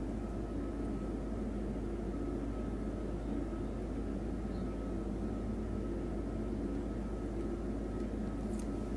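Steady low hum with a faint constant whistle-like tone, and a light click near the end.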